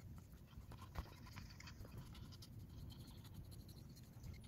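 Faint scratching strokes of a deshedding brush being drawn through a short-haired Chihuahua's shedding coat, with a soft knock about a second in.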